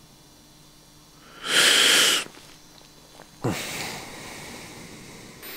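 A loud, sharp sniff-like intake of breath lasting under a second, then about a second later a longer, quieter breathy hiss that trails on to the end.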